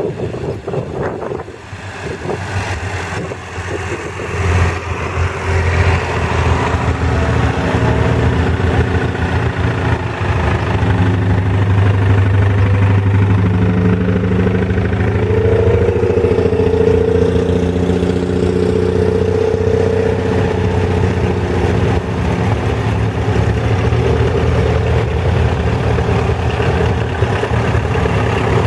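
Engines of vintage farm tractors running as they drive slowly past one after another, among them a grey Ferguson and a green Bungartz. The engine sound grows louder about five seconds in and stays strong as the tractors pass close by.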